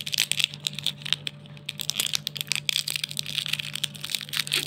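Metallised plastic wrapper of an Alpenliebe Juzt Jelly candy crinkling and crackling as fingers tear it open: a dense run of small crackles that eases briefly about a second and a half in.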